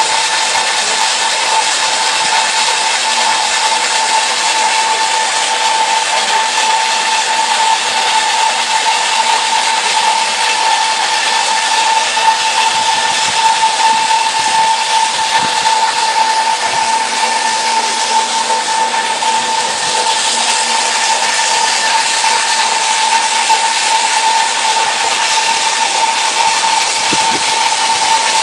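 Diamond wire saw cutting stone, running steadily with a constant high whine over a strong hiss.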